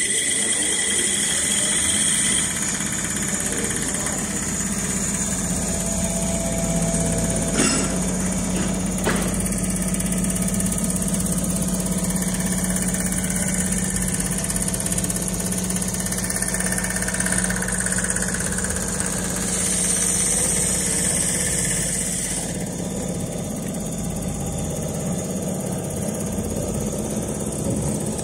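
Automatic furniture sewing machine running with a steady mechanical hum, with two sharp clicks about eight and nine seconds in.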